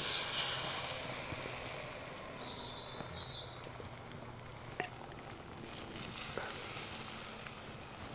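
Omelette batter poured into hot oil in a cast-iron pan. It sizzles suddenly as it hits the oil, then settles over a couple of seconds into a quieter, steady sizzle as the egg spreads and cooks.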